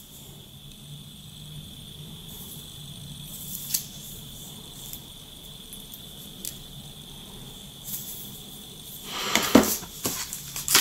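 Hands handling a Blackview A8 smartphone: a few faint clicks and taps over a faint steady high-pitched whine, then louder rustling and knocks about nine seconds in.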